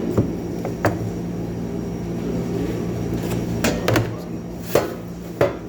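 A knife chopping grilled chicken on a cutting board: about six sharp, irregularly spaced knocks. A steady machine hum runs underneath.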